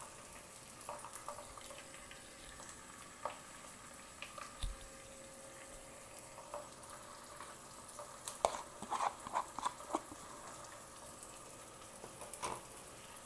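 Sliced onions frying gently in oil with ginger and garlic paste added: a faint steady sizzle with scattered small crackles and pops, bunched together for a moment past the middle.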